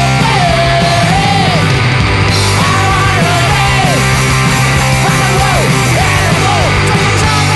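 Rock song played loudly by a band with electric guitars and drums, its melody line bending down in pitch at the end of each phrase.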